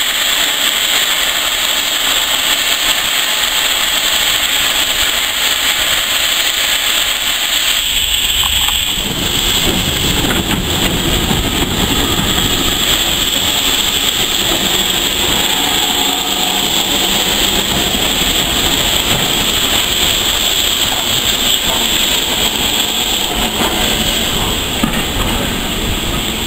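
LNER B1 steam locomotive No. 61306 approaching tender-first with a steady hiss of steam. From about nine seconds in, a low rumble of wheels on rail sets in as the engine and its teak coaches pass close by.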